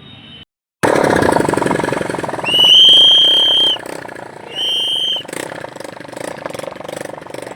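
Motorcycle engine running loud, with a horn sounded twice: one long steady high-pitched blast of about a second, then a shorter one.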